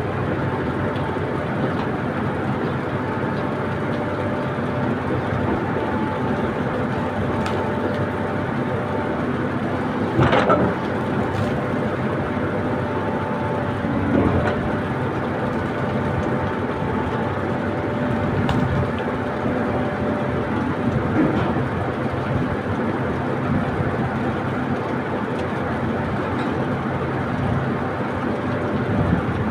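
Backhoe's diesel engine running steadily, with a few sharp metallic knocks.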